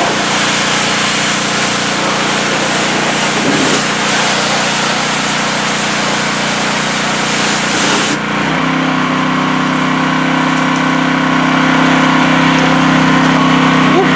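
Hot Boss 4000 PSI hot water pressure washer running: its gas engine drones steadily under the hiss of the high-pressure spray. About eight seconds in, the spray stops suddenly and the engine carries on alone with a slightly changed pitch.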